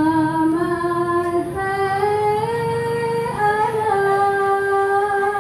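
A female voice singing a slow hadroh devotional melody into a microphone, holding long notes and gliding between them.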